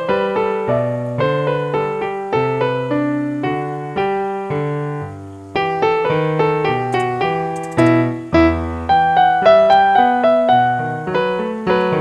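Piano music: a continuous run of melodic struck notes, each fading after it is played, with a brief lull about five seconds in.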